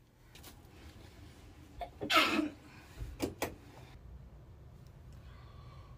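A woman sneezes loudly once about two seconds in, the sneeze falling in pitch, followed about a second later by two short, sharp sounds in quick succession.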